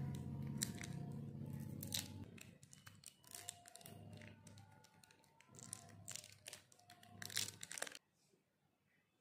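A Boomer jelly sweet's foil-lined plastic wrapper crinkling and tearing as fingers pull it open and peel it back: a rapid run of sharp crackles that cuts off suddenly about a second before the end.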